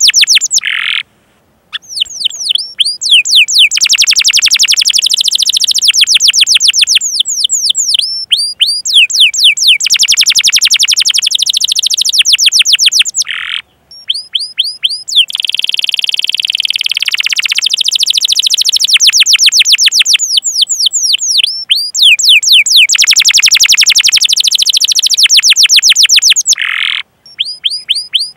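Domestic canary singing a long song of fast rolling trills made of rapid, repeated falling chirps, with a few very short pauses between phrases.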